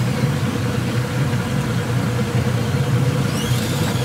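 Boat's outboard motor running steadily with a low drone and a faint steady tone, over an even hiss. A faint rising whine comes near the end.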